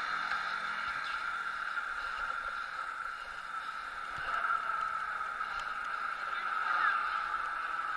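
Steady hiss of riding noise, wind and tyres rolling on asphalt, picked up by a camera mounted on a moving bicycle.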